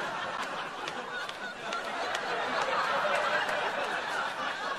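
Sitcom studio audience laughing, a dense crowd laugh that grows a little louder around the middle and eases off near the end.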